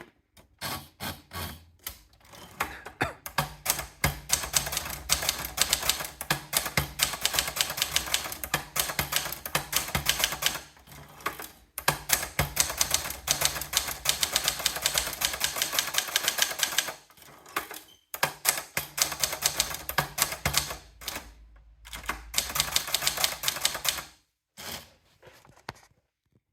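Contessa De Luxe typewriter being typed on at a fast, steady pace, with keys striking in rapid runs and a few brief pauses between them.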